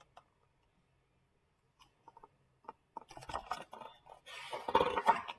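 Pages of a picture book being handled and turned: near silence, then paper crackling from about three seconds in, building to a louder rustle near the end.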